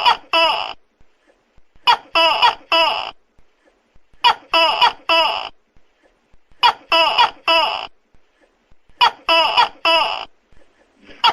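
Tokay gecko calling: loud, clipped, pitched notes in clusters of three, one cluster about every two and a half seconds.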